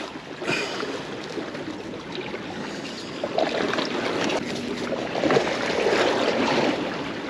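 Sea washing against shoreline rocks, a steady wash of noise that swells for a couple of seconds about five seconds in.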